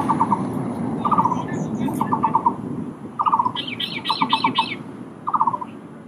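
Taiwan barbet calling: short bursts of four or five quick, low hooting notes, repeated about once a second. A higher-pitched bird chirps briefly in the middle, over a steady low background hum.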